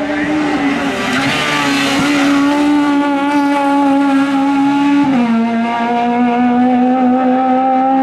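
Honda Civic hillclimb car's engine under hard acceleration out of a hairpin, its note held high and fairly steady. About five seconds in the pitch drops suddenly at an upshift, then climbs slowly again as the car pulls away.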